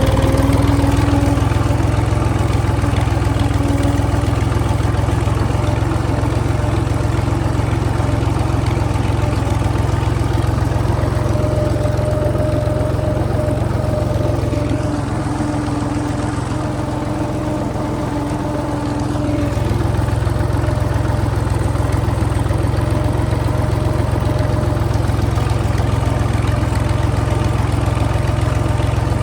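Tractor engine running steadily, easing off slightly about halfway through before picking up again.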